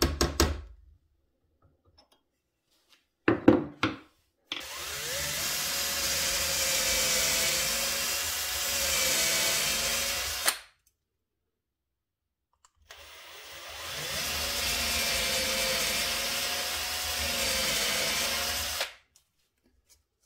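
A hammer strikes a drill bit a few quick taps to punch hole centres into wood, then a cordless drill bores two pilot holes into the wooden bench, each run about six seconds long, the motor rising in pitch as it spins up and then running steadily.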